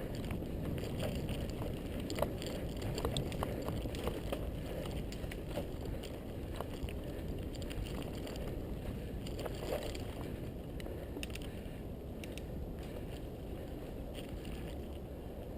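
Mountain bike riding along a dirt singletrack trail: a steady low rumble of tyres and air, with many small clicks and rattles from the bike over the rough ground.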